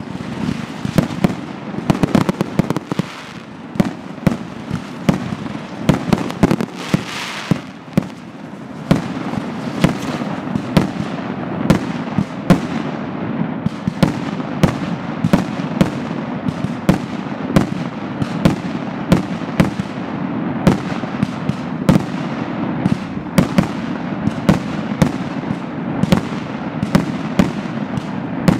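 Aerial fireworks display: a rapid, irregular series of sharp bangs from shells bursting, over a continuous crackle that thickens about nine seconds in.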